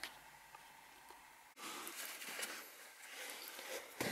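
Faint rustling and handling noises while car wiring and interior trim are worked on by hand, near silence for the first second and a half, with a couple of small clicks near the end.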